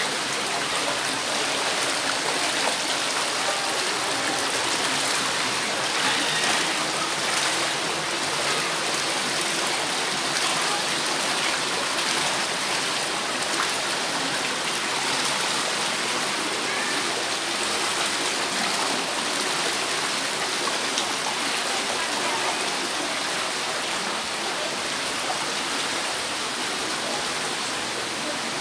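Water of a shallow rocky mountain stream running and splashing over stones: a steady rushing hiss.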